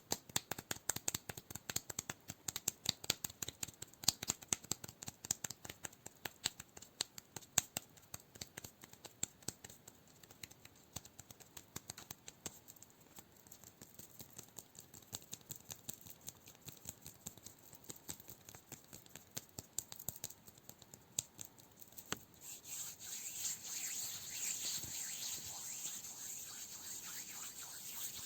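Fingers tapping rapidly on cork, many sharp taps a second, loudest at first and thinning out. About three-quarters of the way through it gives way to a steady scratching rub.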